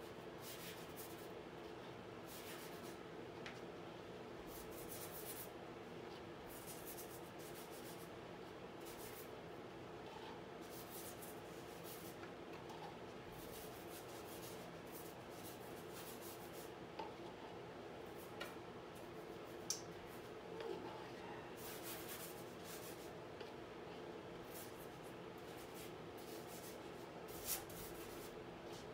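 Faint, irregular scratchy strokes of a painting tool dragging paint across a stretched canvas, over a steady low room hum.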